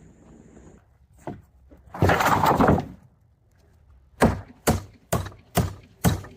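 Hammer striking wood in a steady rhythm of about two blows a second, as in nailing fence boards. It follows a loud noisy burst about a second long.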